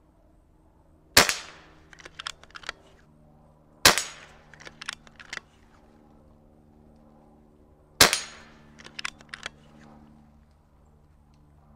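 Niksan Tacto .22 PCP air rifle firing three shots, about three and four seconds apart. Each shot is a sharp crack, followed about a second later by a quick run of lighter clicks.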